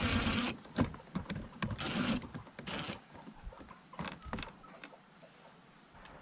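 Power drill driving screws into a car door panel: the motor runs and stops about half a second in, then two more short runs, with clicks and knocks of the tool and panel in between.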